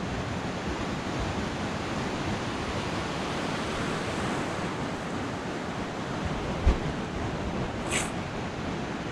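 Ocean surf breaking and washing up a sand beach, a steady rushing wash of waves and foam. About two-thirds of the way through there is a single low thump, and a brief high hiss follows about a second later.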